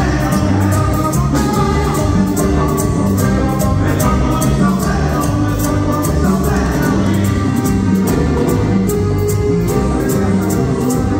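Live tropical Latin dance band playing loudly, with electronic keyboard, drums and a metal güiro scraper keeping an even beat under a singing voice.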